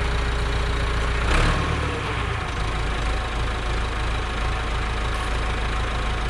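Landini 8880 tractor's Perkins diesel engine idling steadily. A little over a second in there is a brief clunk, and the engine note shifts down and settles.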